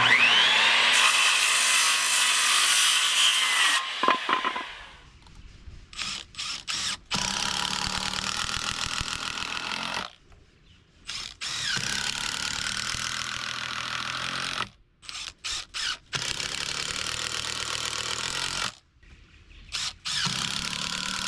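A Skil circular saw spins up with a rising whine and cuts through a pressure-treated board, stopping about four seconds in. After that a cordless drill bores into stacked pressure-treated lumber in a string of starts and stops: runs of two to three seconds broken by short pauses and quick blips on the trigger.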